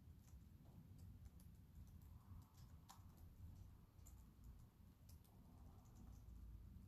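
Near silence: room tone with a faint low hum and a few scattered faint clicks.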